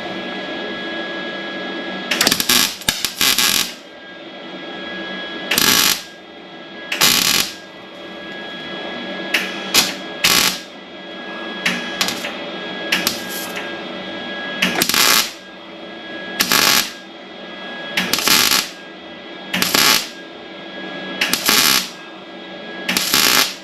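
Welder firing in short bursts, about a dozen of roughly half a second each, a second or two apart, built up around the edge of a small hole in sheet steel to fill it. A steady machine hum runs underneath.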